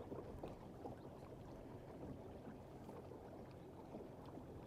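Faint ambience on the water from a small boat: a low steady rumble with a few light ticks.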